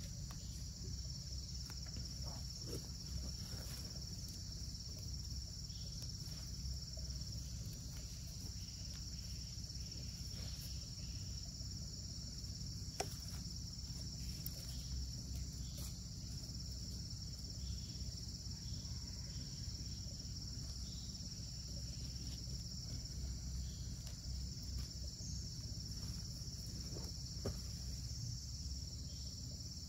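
Steady high-pitched chorus of insects, with a steady low rumble underneath. A few faint soft taps and rustles come from hands pressing loose soil around transplanted seedlings.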